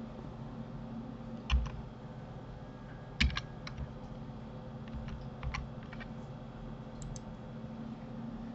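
Computer keyboard keys and mouse buttons clicking in short scattered clusters, the loudest about one and a half and three seconds in, over a steady low electrical hum.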